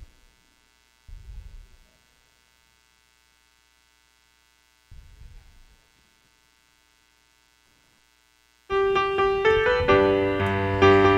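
Quiet with two soft low thumps, then about three-quarters of the way in a piano starts playing, opening the introduction to a worship song.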